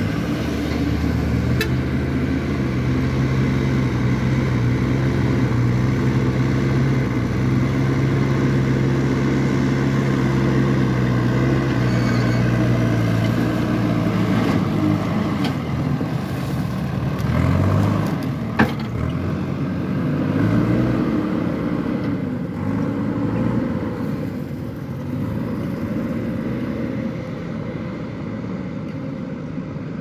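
JCB backhoe loader's diesel engine running under load as it pushes and dumps gravel, steady for the first half, then revving up and down several times. A single sharp clank a little past halfway.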